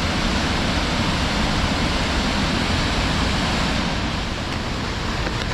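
Belye Mosty waterfall rushing: a steady, even wash of falling water with no breaks.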